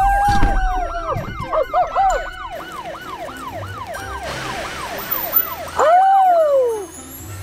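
Police-style siren: a held wail, then a fast yelp of quick rising-and-falling sweeps about three a second, then one more wail about six seconds in that falls away and stops shortly before the end.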